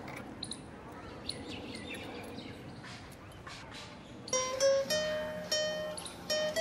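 Faint background hiss with a few light clicks, then about four seconds in a plucked string instrument starts a slow melody of single ringing notes, about two a second.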